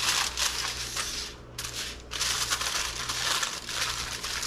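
Aluminum foil crinkling as it is folded and crimped tightly around a small meatloaf pan, in two spells with a short lull about a second and a half in.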